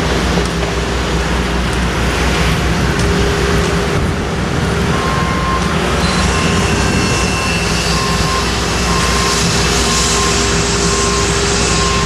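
Construction machinery engines running steadily. From about five seconds in, a reversing alarm beeps about once a second.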